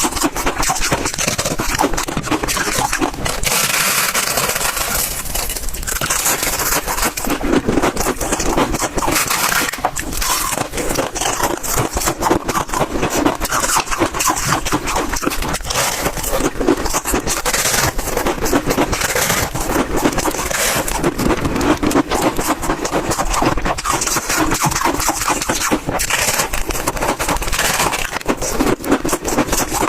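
Close-miked chewing of big bites of freezer frost: a dense, continuous crunching with crisp crackles.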